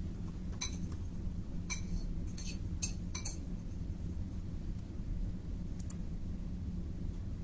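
A handful of light, sharp clicks, several bunched together in the first few seconds and one more near the end, over a steady low hum.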